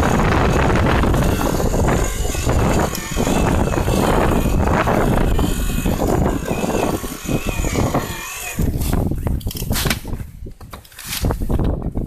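Electric-assist mountain bike climbing a dirt trail: a loud rush of wind and riding noise on the camera microphone, with the bike rattling over the ground. From about two-thirds of the way in the rush breaks up into separate knocks and rattles.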